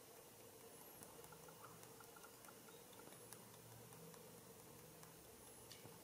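Near silence: room tone with a faint steady hum and a few faint ticks.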